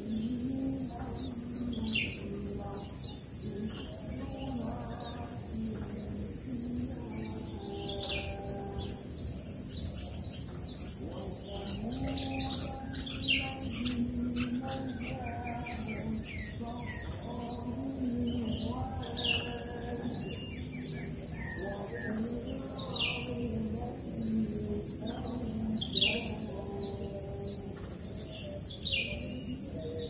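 Short, high, downward-slurred bird chirps, repeated every second or two, over a steady high drone of insects.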